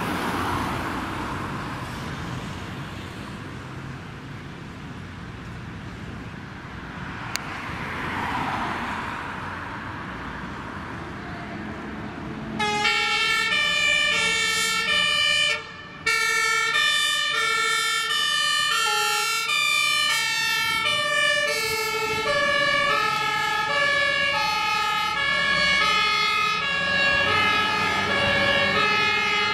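Road traffic passing. Then, about twelve seconds in, a Scania HLF 20 fire engine's compressed-air two-tone siren starts loudly and keeps alternating between a high and a low note.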